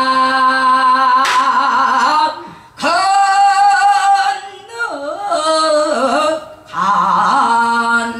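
A woman singing Boseong-school pansori, unaccompanied: long held notes with wide vibrato and bending, sliding pitch, broken twice by short pauses for breath. A single sharp knock sounds about a second in.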